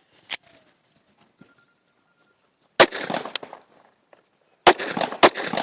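Zigana Sport 9 mm pistol being fired. A sharp click comes under a second in, then a single shot about three seconds in. Near the end a quick string of shots begins, each followed by an echoing tail.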